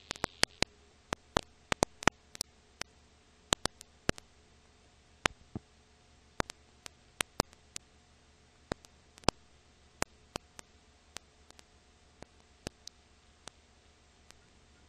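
Irregular sharp clicks and pops, about two a second, over a faint steady hiss and low hum, with no music or voices: the surface noise of an old silent-film print with no soundtrack of its own.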